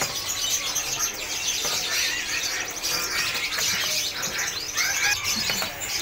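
Many caged songbirds chirping and twittering at once: a dense, overlapping chorus of short high chirps and trills with no single bird standing out.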